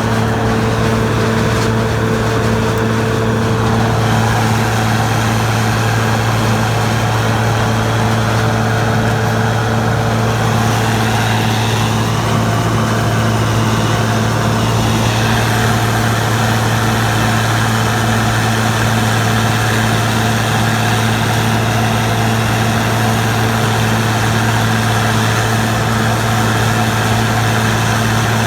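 Gleaner combine running steadily during corn harvest: a loud, constant low engine drone that does not change.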